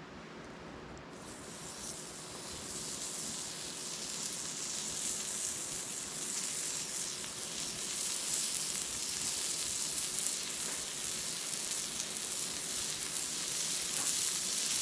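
Meat sizzling on an iron griddle plate. A steady frying hiss sets in about a second in and grows gradually louder.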